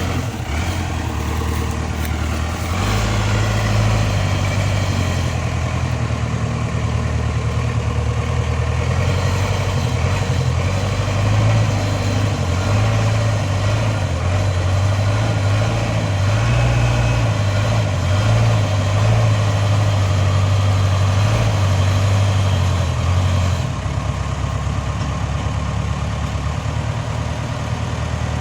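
Backhoe loader's diesel engine running steadily, working harder from about three seconds in and easing back near the end.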